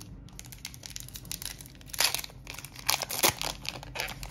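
Crinkly plastic wrapper of a Magic: The Gathering booster pack being torn open and crumpled by hand, with louder rips about two and three seconds in.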